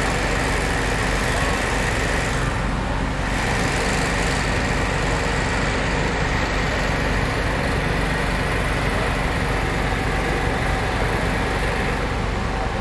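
Small engine-driven generator on a food truck running steadily, a constant hum with a few held tones.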